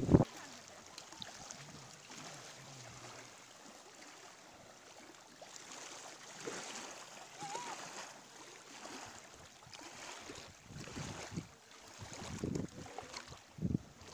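Wind buffeting the microphone in gusts, strongest right at the start and again near the end, over the faint wash of small waves lapping against a lakeshore.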